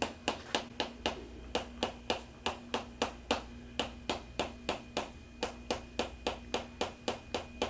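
Sharp, evenly spaced clicks, about three or four a second, from a spring-loaded chiropractic adjusting instrument (activator) fired repeatedly against the body.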